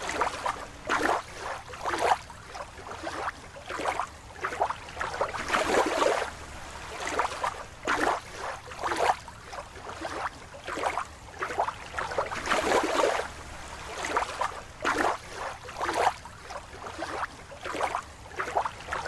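Water sloshing and splashing in a small bowl as a rubber toy is moved through it, in irregular swishes about once or twice a second.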